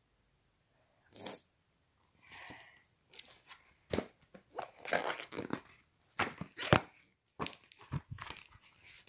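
Handling noise of a paper picture book and the handheld phone recording it: rustling and sharp little knocks, sparse at first and then busy and close together from about three seconds in.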